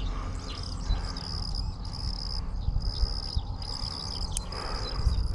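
Field insects trilling: a high, steady trill that stops and starts in bouts of about a second, over a low rumble, with a single sharp click about four seconds in.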